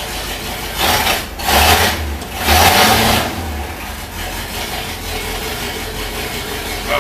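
1973 International Loadstar bus's gasoline engine running cold, with three short blips of the throttle in the first few seconds, each a rush of noise over a heavier engine note, then settling back to a steady idle.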